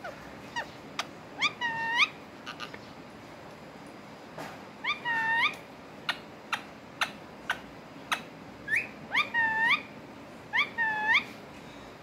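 Ringneck parakeet calling: a string of short, sharp chirps broken by four quick runs of squawky notes that rise and drop, about two, five, nine and eleven seconds in.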